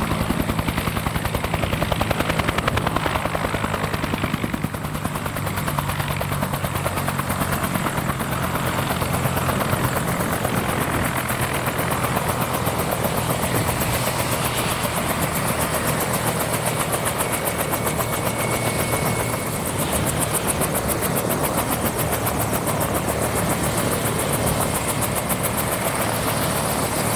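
Bell 205 A1++ "Huey" helicopter running on the ground, its two-bladed main rotor turning: a steady, rapid blade beat over the turbine engine's noise.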